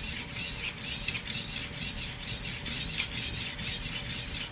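Chinese cleaver being sharpened on a water-soaked whetstone: a steady run of quick, rhythmic back-and-forth strokes of steel scraping across wet stone.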